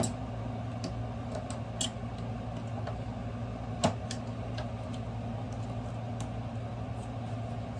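Scattered small clicks and one sharper knock about four seconds in as the table saw's riving knife is taken off the blade assembly, over a steady low hum.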